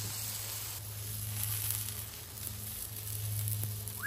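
Batter-coated tortilla wrap sizzling on a hot flat-top griddle, a steady frying hiss with a low steady hum underneath.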